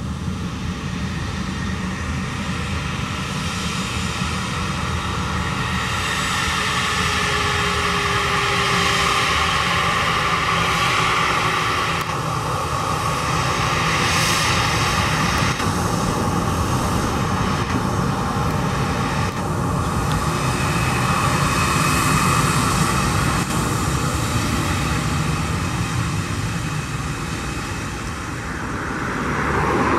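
Airbus A320's twin jet engines running at taxi power as the airliner rolls past: a steady whine over a low rumble, swelling briefly near the end.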